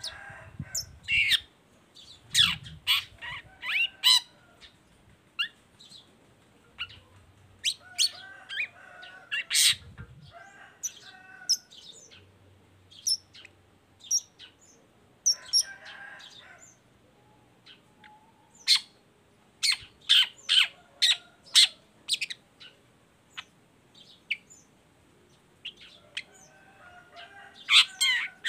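Long-tailed shrike singing: volleys of short, sharp, high chirps broken up by scratchy chattering phrases, in bursts with short pauses between them.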